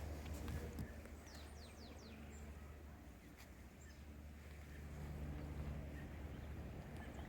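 A bird calling: four quick, high, falling notes about a second and a half in, with a few faint clicks, over a steady low hum.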